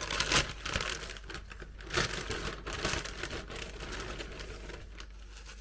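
Plastic packaging bag crinkling and rustling as it is opened by hand and a garment is pulled out. The rustling is busiest in the first few seconds and dies down near the end.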